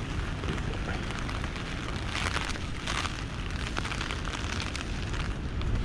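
Gale-force wind buffeting a Luxe Hexpeak V4A tent from inside, with light rain on the fabric. A constant low rumble is broken by louder rushing gusts about two seconds in, again at three seconds, and near the end.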